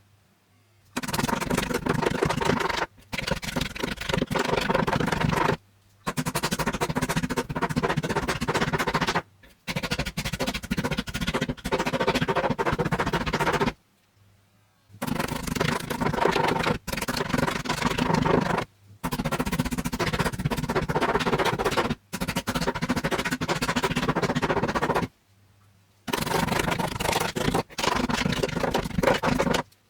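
Crunching and crackling of objects being crushed, in about nine short clips of a few seconds each, separated by sudden cuts to silence.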